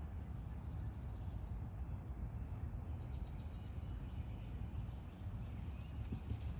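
Outdoor ambience: a steady low rumble of wind on the microphone, with small birds chirping faintly and high-pitched many times throughout.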